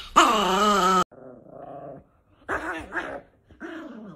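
A Chihuahua gives a loud, drawn-out growl with a wavering pitch for about a second, cut off suddenly. Then come quieter, broken growls during a tug-of-war game with a cloth.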